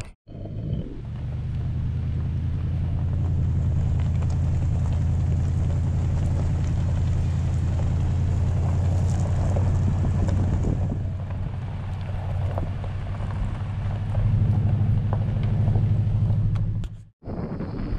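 Pickup truck engine running steadily on a gravel road, with tyre noise and wind across the microphone; the engine drone swells a little about three quarters of the way through.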